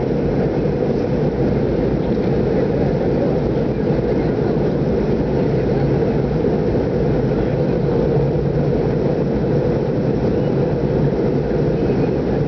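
Jet airliner cabin noise heard from a passenger seat in flight: the engines and rushing air make one steady, even sound, weighted low, with a faint constant hum under it.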